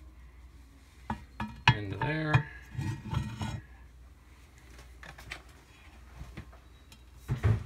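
Cast-iron waffle iron being handled during oiling: a few sharp metal clinks and knocks about a second in, some rattling handling, and a heavier clunk near the end.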